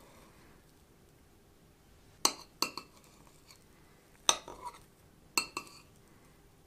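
Metal spoon clinking against a ceramic plate while scooping cake: three short clusters of sharp clinks, about two seconds in, just after four seconds and just after five seconds, each a hard tap followed by one or two lighter ones.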